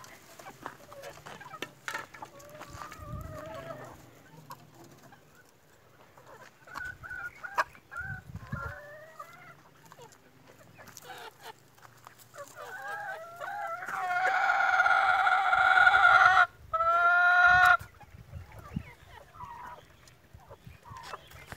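Chickens clucking, then a rooster crows loudly about two-thirds of the way in: one long held call with a brief break before its last stretch.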